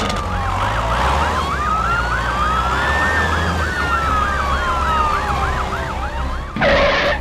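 Emergency-vehicle siren: a fast yelp of about four up-and-down sweeps a second over a slower wail that rises for about three seconds and then falls. A short loud burst of noise cuts in near the end.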